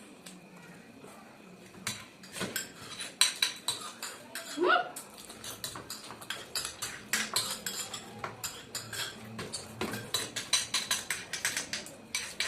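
Spoons clinking and scraping against plates in quick, irregular taps. The taps start about two seconds in, after a quiet stretch, and run densely on, with one short rising squeak near the middle.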